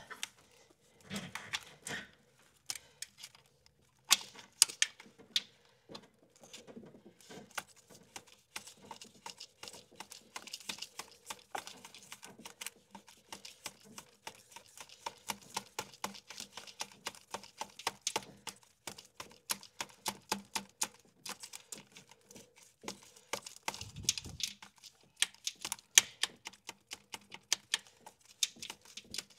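Mini ratchet clicking as a bolt is backed out under the intake. A few scattered clicks at first, then a long run of quick, even ratchet clicks for most of the time.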